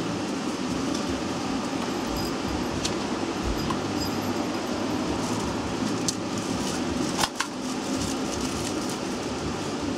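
Steady ventilation hum, with a few light clicks as clothes and a plastic tag are handled, the sharpest a quick double click about seven seconds in.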